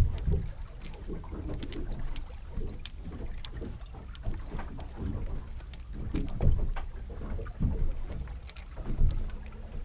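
Sounds of a small boat at sea: a steady low wind rumble on the microphone with irregular knocks and slaps. The loudest knocks come about six and a half, seven and a half and nine seconds in.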